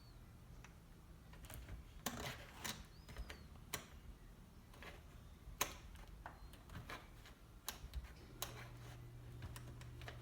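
Bent coat-hanger wire being worked in a door gap under a deadbolt, giving scattered, irregular ticks, clicks and short scrapes of metal against the door and latch. A low steady hum comes in near the end.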